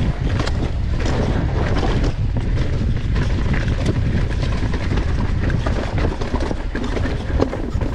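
Wind buffeting an action camera's microphone on a fast downhill mountain bike run, over a steady low rumble with constant clatter and knocks from the bike on the trail.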